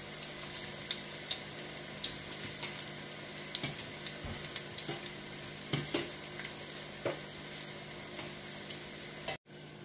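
Spinach-and-potato pakoras deep-frying in hot oil, a steady sizzle scattered with small crackles and pops, as a wire spider skimmer moves through the oil. The fritters are nearly done. The sound cuts out for an instant near the end.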